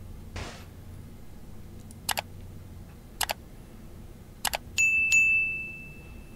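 Subscribe-button animation sound effect: three sharp clicks about a second apart, then a bell chime struck twice, its high tone ringing on.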